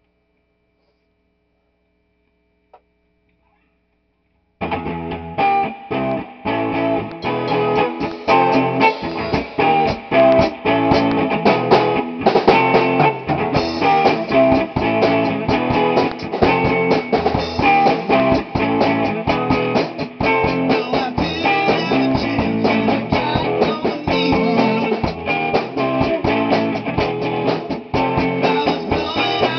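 Near silence for the first few seconds, then a rock band comes in abruptly at full volume: electric guitar over a drum kit, playing on without a break.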